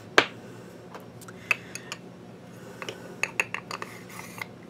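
Small hard clicks and taps of makeup containers being handled: a sharp click just after the start, a few more about a second and a half in, then a quick flurry of clicks near the end.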